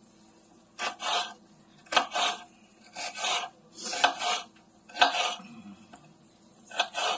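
Kitchen knife slicing through a green bell pepper on a wooden cutting board: six cutting strokes about a second apart, with a longer pause before the last.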